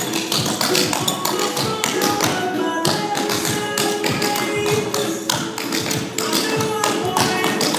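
Clogging taps on a wooden floor, fast and dense in a rhythmic buck and flat footing pattern, over recorded pop music.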